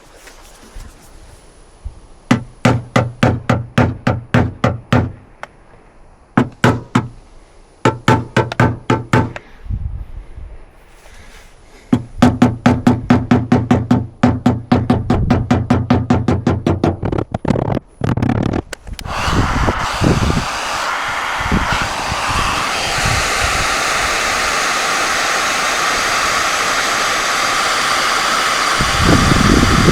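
Rapid tapping on a car body panel with a paintless dent repair knockdown tool and hammer, in runs of about five light taps a second, each with a short metallic ring. About two-thirds of the way in the tapping gives way to a steady fan-like rushing noise with a faint whine.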